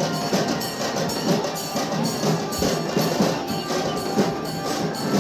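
Drum-led music with a fast, steady beat, the percussion strokes cracking sharply several times a second over a dense, busy mix.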